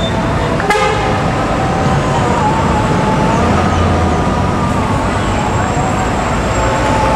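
Steady road and engine noise of a moving vehicle ride, with a brief pitched toot about a second in and a faint wavering tone above the noise.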